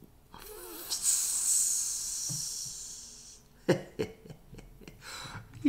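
A person making a long hissing "psssss" with the mouth, like air leaking out, then a few clicks and a second, shorter hiss near the end.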